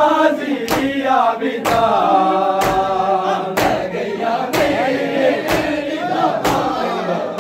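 Men chanting a Muharram noha together in a crowd, with loud unison slaps of hands on bare chests (matam) about once a second keeping the beat.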